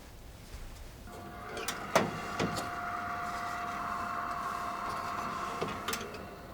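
A small electric kitchen appliance motor running steadily with an even whine for about five seconds. There are a few sharp clicks soon after it starts and another click as it stops.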